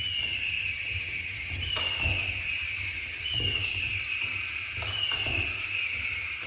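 Electronic bird cat toy chirping: a high falling chirp repeated about every second and a half, four times, with soft knocks under it.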